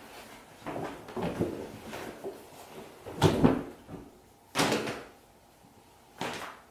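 Area rug being unfolded and flapped out onto a kitchen floor: fabric rustling, then three loud whooshing flaps, each landing with a soft thump.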